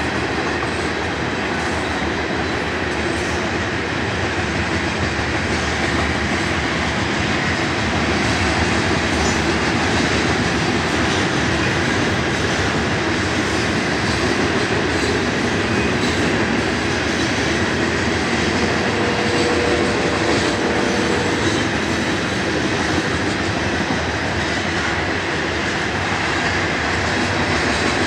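BNSF grain train's covered hopper cars rolling past, their steel wheels running on the rails with a steady, continuous noise.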